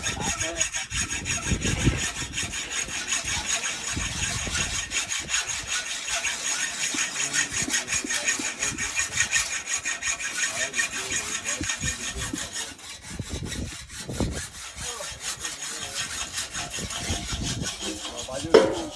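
Sawing by hand: a continuous run of rapid rasping strokes that eases off in the second half and stops with a sharp knock near the end.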